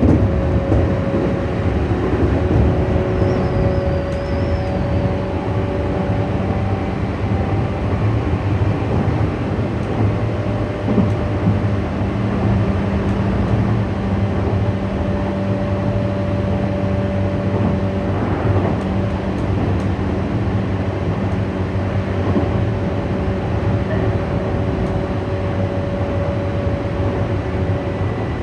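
Tokyu 8500 series electric train running steadily along the line, heard from inside its lead motor car: traction motors humming with several steady tones over the rumble of wheels on rail.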